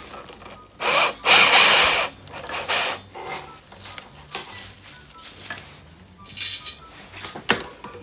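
Tools working the fasteners of a dirt bike's metal shipping cage: a loud rasping burst lasting under a second, like a ratchet or power driver spinning, then scattered metal clicks and knocks.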